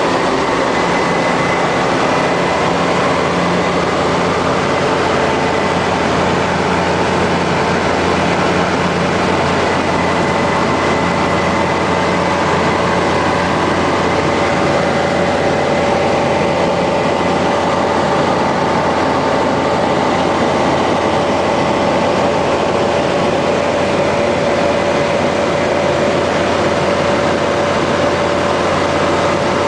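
Foxbat A-22L microlight aircraft in cruising flight: its engine and propeller drone steadily, with rushing air, all at constant power. A few steady tones sit over the noise, one of them drifting slightly in pitch toward the end.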